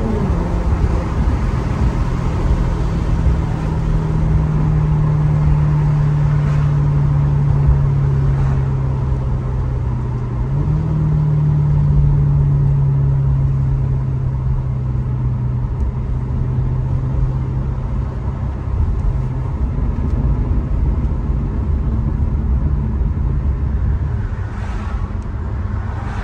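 Maserati GranTurismo's V8 engine running at a light cruise, its note slowly sinking as the car eases off. About ten seconds in, a downshift lifts the pitch, and it then sinks again, over steady road rumble.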